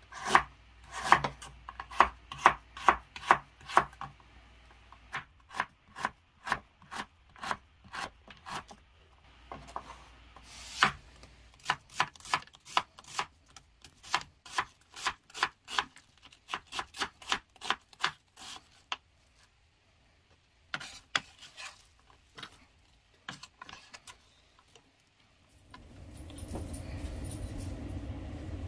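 Chef's knife slicing and julienning peeled ginger on a wooden cutting board: a series of sharp knocks, about two or three a second with short pauses. Near the end the knocks stop and a steady rushing noise takes over as oil is poured into a wok.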